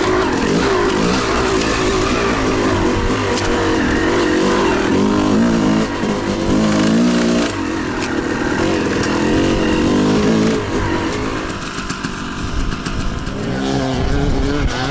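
Two-stroke dirt bike engine revving up and down under a rider's throttle, the pitch rising and falling again and again, with the throttle backed off briefly a few times.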